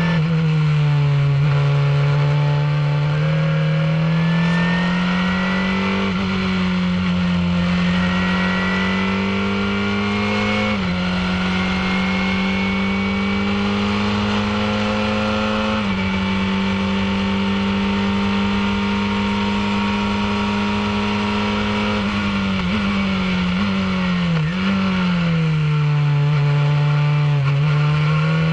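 Formula 2000 open-wheel race car's engine heard from on board at racing speed: the note climbs and holds high with a couple of sudden steps in pitch at the gear changes, then falls away with a few quick blips as it is downshifted into a corner, and climbs again near the end. Wind rushes over the microphone throughout.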